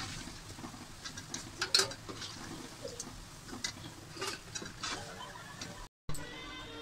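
Metal slotted spoon clinking and scraping against an iron karahi as fried urad dal vadas are lifted out of hot oil: irregular light clicks and taps over a faint sizzle of the frying oil. The clinks stop near the end.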